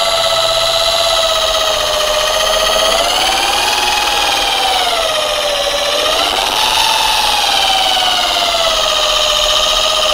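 JLD electric car polisher running at speed 2 with a foam pad on painted bodywork: a steady motor whine that wavers gently up and down in pitch. At this speed the motor holds steady under the pad, with torque judged adequate for polishing.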